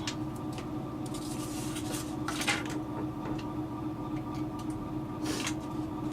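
Scattered clicks, scrapes and light clinks of small hand tools and parts being handled on a workbench while working a foam airframe, loudest about two and a half seconds in and again near the end, over a steady hum.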